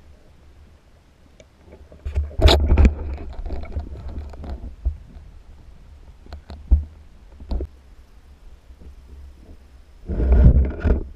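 Muffled underwater noise through a dive camera's housing: a low rumble throughout, with a loud rushing burst about two seconds in and another near the end, and a few sharp clicks between them from the speargun and camera being handled.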